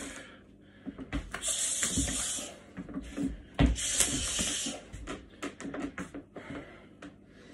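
A man's forceful hissing exhalations while shadow-boxing, two long ones about a second and four seconds in, with scattered thuds of work boots stepping and stomping on the floor.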